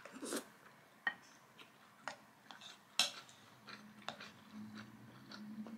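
Quiet eating sounds: chewing a mouthful of rice, with a few sharp clicks about a second apart from a wooden spoon against a ceramic bowl and from the mouth.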